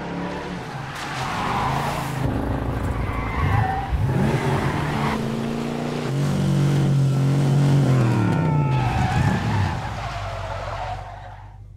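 Classic Ford Mustang fastback's V8 revving up and down as the car drifts on wet tarmac, its tyres squealing and skidding; the engine dies away near the end.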